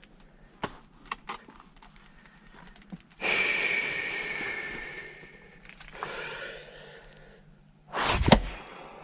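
A person breathing out hard twice while splitting firewood, the first breath long and fading, the second weaker. Near the end comes a sharp, loud blow of an axe striking a log, the loudest sound.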